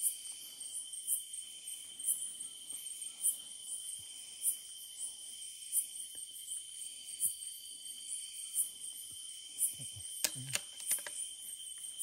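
Chorus of crickets and other night insects: a steady high-pitched trilling that pulses about once a second. About ten seconds in there is a brief low voice sound with a click.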